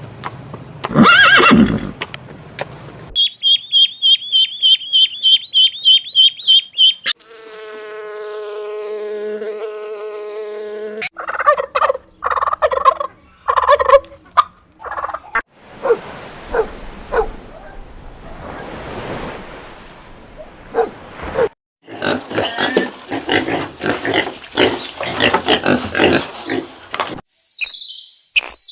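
A run of different animal calls cut one after another, including fowl calls, rapid high-pitched chirping repeated at an even pace, and one long, steady, drawn-out call.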